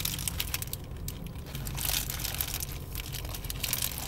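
Close-up eating sounds: a bite into a Jumbo Jack cheeseburger and chewing, with its paper wrapper crinkling in the hands as a run of small crackles and clicks.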